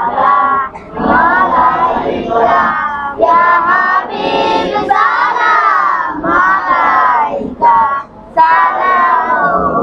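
Singing of a Bengali Islamic devotional song (gojol): long held, wavering notes in phrases, broken by short pauses for breath about a second in and again near the end.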